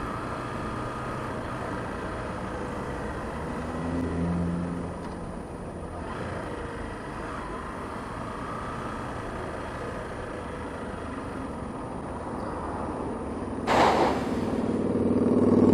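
Riding noise on a Honda CBF125: its small single-cylinder engine under steady wind and road noise, picking up briefly about four seconds in. Near the end there is a sharp hiss, then a louder engine sound building up.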